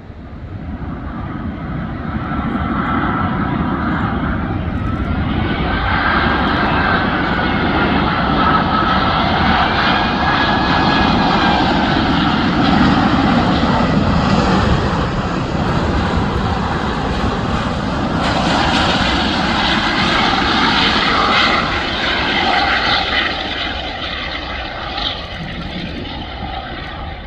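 Jet engine noise from a British Airways Airbus A380 coming in to land, its four Rolls-Royce Trent 900 turbofans running with a wavering whine over the rumble. The noise builds over the first couple of seconds, stays loud for most of the time, and eases off over the last few seconds.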